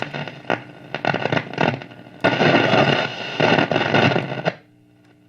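Vintage Zenith tube radio tuned between AM stations: crackling static with scattered clicks, swelling to a loud hiss in the middle. About four and a half seconds in the static cuts off, leaving only a faint steady hum.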